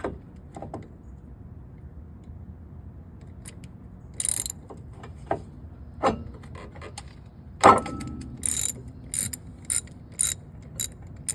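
Socket ratchet clicking in short runs while a brake caliper bolt is worked loose, with a few knocks of the tool against metal. The quick clicks come in a row of about seven over the last three seconds.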